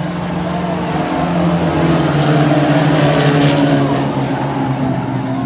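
A pack of race trucks' engines running hard on an oval track, several engines overlapping. They grow louder as the trucks pass close, peaking about three seconds in, then ease off.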